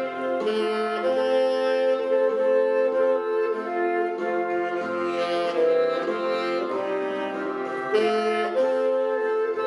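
Saxophone ensemble playing a slow hymn in harmony, several saxophones holding long chords that change every second or two.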